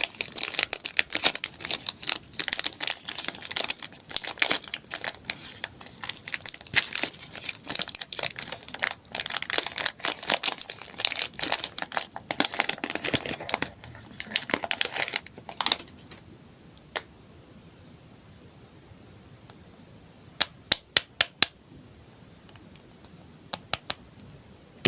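Candy wrappers crinkling and tearing as sweets are unwrapped, a dense continuous crackle for about fifteen seconds. After that come only a few scattered sharp clicks and rustles.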